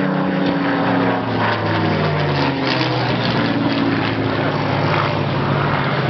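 Supermarine Spitfire's Rolls-Royce Merlin V12 engine running on a low pass, its note dropping in pitch about two and a half seconds in as the aircraft goes by.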